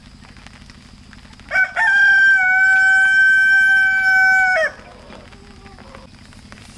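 A rooster crowing once, loud: a short first note, then one long held call of nearly three seconds that cuts off suddenly.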